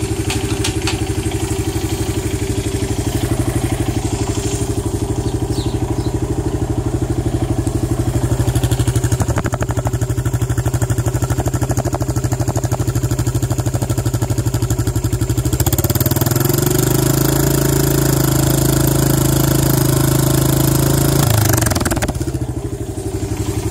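ATV engine idling steadily; about two-thirds of the way through it speeds up and holds a higher pitch for about five seconds, then drops back to idle near the end.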